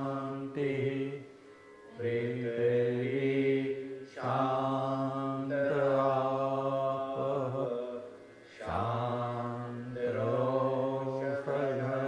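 Vedic mantras chanted in long, steady, held phrases, with brief pauses for breath between them.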